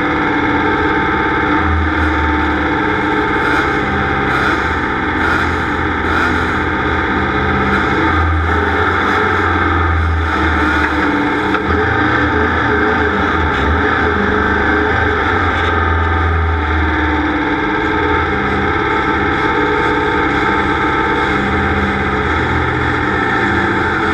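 Rock music with heavily distorted electric guitar over a stepping bass line, loud and steady throughout.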